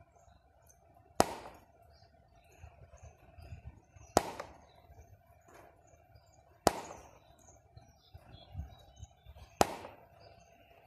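Jinbei MSN 800 studio flash being test-fired four times, each discharge a sharp pop, about every two and a half to three seconds.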